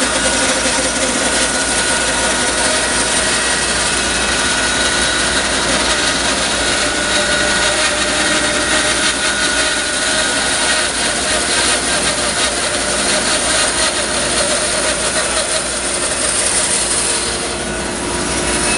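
Bandsaw running steadily while its blade rips lengthwise through a long log: a dense, even hiss over a steady motor hum, easing briefly near the end.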